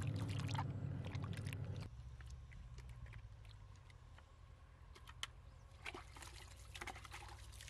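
Water sloshing and trickling in a plastic bucket as hands rinse in it, with scattered small clicks. A loud steady low hum fills the first two seconds and cuts off suddenly.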